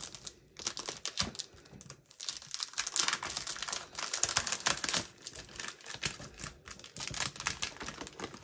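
Clear plastic packaging of a scrapbooking kit crinkling and rustling as it is opened and handled by hand. The sound is sparse at first, then a dense run of crinkles starts about two seconds in.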